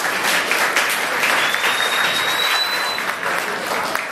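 Audience applauding steadily, with a thin high whistle tone heard for about a second and a half in the middle.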